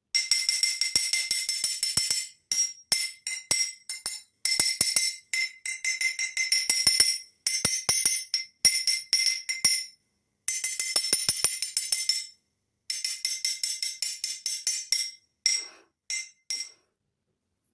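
Rapid jingling percussion like a shaken tambourine, in bursts of one to three seconds separated by short silent gaps.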